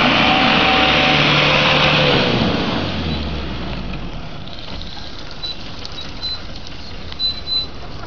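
Mitsubishi L200 pickup's engine held at high revs, then the revs drop away about two seconds in and it settles to a quieter, low running.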